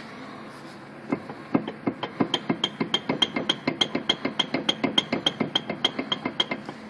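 Rapid, even metallic knocking, about six knocks a second, starting about a second in and stopping near the end. It is a 2005 Mazda 3 wheel being worked for play, knocking on a bad wheel bearing.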